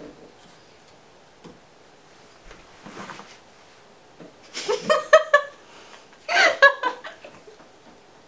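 People laughing in two short bursts, about five seconds in and again about a second later.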